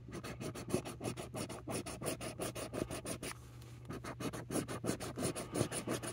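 Scratch-off lottery ticket being scratched in quick, repeated back-and-forth strokes, with a short pause a little past halfway.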